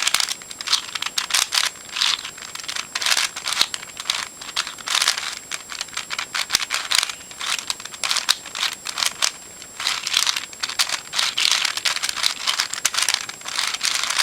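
Plastic Eastsheen 4x4 puzzle being turned quickly by hand: a fast, irregular run of clicks and scraping as the layers move, while the single flipped edge (the 4x4 edge-flip parity) is being fixed.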